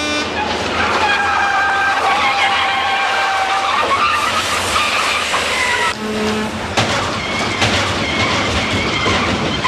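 Vehicle tyres screeching and engines running as a semi-trailer truck and cars swerve, with a few sharp knocks in the second half.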